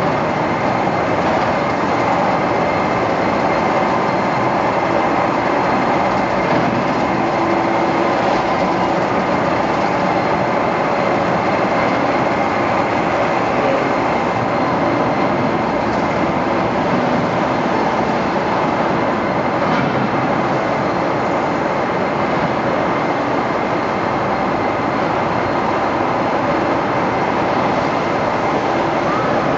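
Railway turntable slowly turning with a locomotive on it: a steady, continuous mechanical running noise from the drive and wheels on the circular rail, with a faint, steady high whine.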